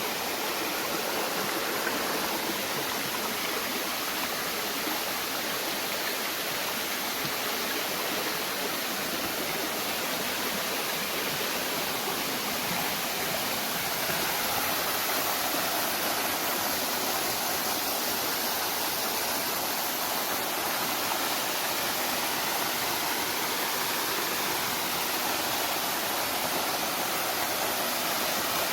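Steady rush of flowing water, a stream or waterfall, unbroken throughout.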